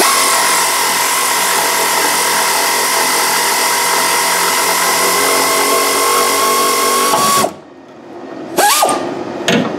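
A power tool runs steadily for about seven seconds with a high whine, backing a rusty leaf-spring shackle bolt out, then cuts off; two short spin-ups of the tool follow near the end.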